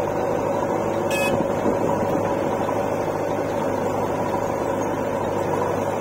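Diesel engines of a JCB 3DX backhoe loader and a farm tractor running steadily at idle, with a brief high-pitched sound about a second in.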